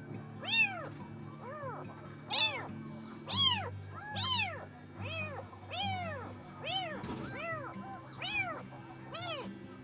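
Newborn kitten meowing repeatedly, about one or two cries a second, each rising then falling in pitch: an orphaned kitten crying for its mother. Soft background music with steady low tones runs underneath.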